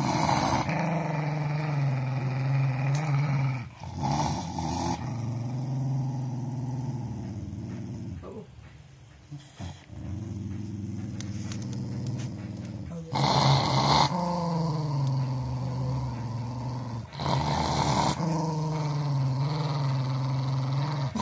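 A small white spitz-type dog growling to guard its food from the owner's hand: long, low growls with short breaks. It is quieter for a while near the middle and flares into louder snarls about thirteen and seventeen seconds in.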